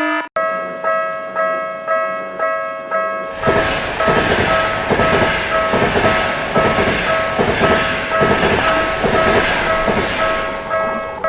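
Japanese railway crossing warning bell ringing 'kan-kan', about two strikes a second. About three seconds in, a passing train's rumble and rhythmic wheel clatter join over the bell, then fade out near the end while the bell keeps ringing.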